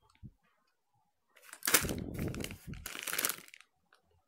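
Crinkling of a plastic candy packet as it is handled and turned over, starting about a second and a half in and going on for about two seconds in two bouts.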